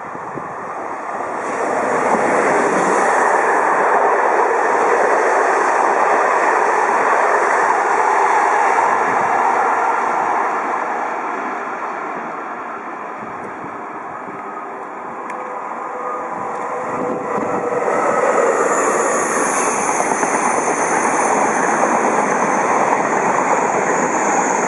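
Electric trains passing on the line. First a BB 7200 electric locomotive hauling an Intercité passenger train runs by with a steady rumble and rush for several seconds. After a lull, a Renfe AVE high-speed trainset approaches and rolls by, its running noise topped by a steady high whine.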